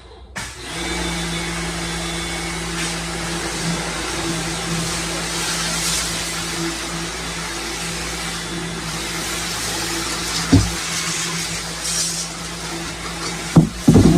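Electric pressure washer starting up about half a second in and running steadily, a motor and pump hum over the hiss of the water jet. A few sharp knocks near the end.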